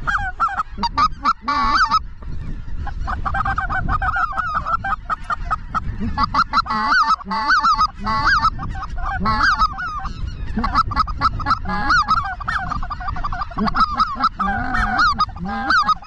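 A large flock of geese calling as it approaches, many short honks and yelps overlapping in a dense, continuous chorus.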